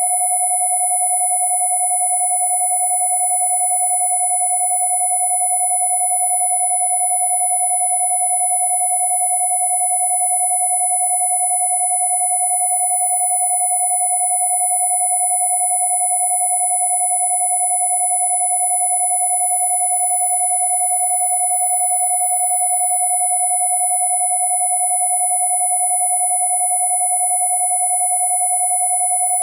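Two steady electronic sine tones held together without change: a 727 Hz tone and a high-pitched 10,000 Hz tone, generated as Rife-style frequency tones. Fainter overtones of the lower tone sit above it.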